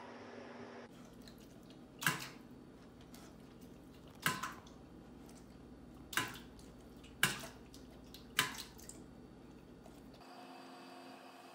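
A dog at a metal water bowl: five separate splashes of water, a second or two apart.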